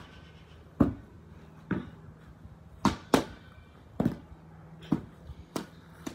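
A large plastic ball being kicked up repeatedly with the feet, about seven sharp hits roughly once a second.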